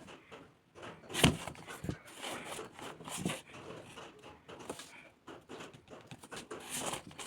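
Irregular rustling, scraping and a few sharp taps of packaging being handled, with one louder knock about a second in.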